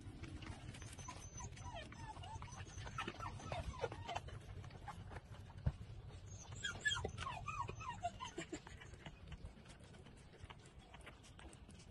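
Newborn puppies nursing from their mother: a continuous patter of small wet sucking and smacking clicks, with two bouts of high, squeaky whimpers, about two seconds in and again around seven seconds in.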